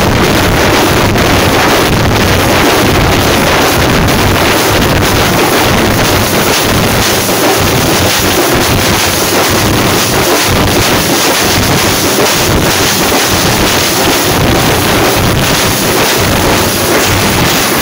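Loud, dense drumming by a jamab folk drum troupe, frame drums beaten with sticks, blurring into a continuous din.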